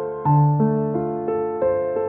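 Background music: a keyboard playing a gentle run of notes, about three a second, over held low notes.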